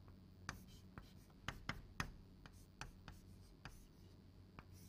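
Chalk on a blackboard while a circuit diagram is drawn: a string of irregular sharp taps and short scrapes, loudest about one and a half to two seconds in.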